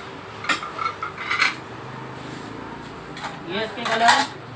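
Ceramic-style dinner plates clinking against one another as they are picked up, stacked and set down, a few separate chinks with short rings.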